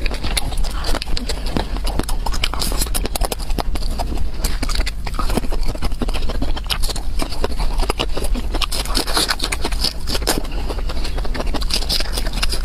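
Close-miked chewing and mouth smacking of a person eating, a fast, irregular stream of sharp clicks that goes on without a break.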